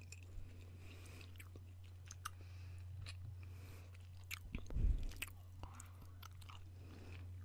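Chewing gum being chewed close to the microphone, a run of small mouth clicks, with one louder low thump about halfway through. A steady low hum runs underneath.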